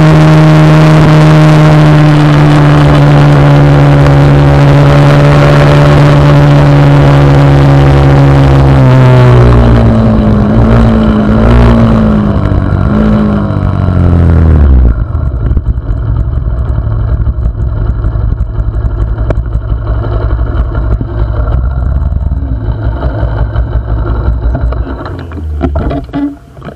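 Small motorcycle engine running at steady high revs on the move. About nine seconds in, its note wavers and falls as it slows. About fifteen seconds in, the steady note drops out suddenly, leaving a lower rumble of riding noise that fades near the end.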